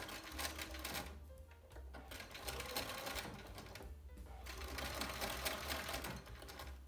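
Bernina Virtuosa 155 sewing machine running at speed, stitching a straight seam along a fabric strip. It runs in three spells with brief stops between them.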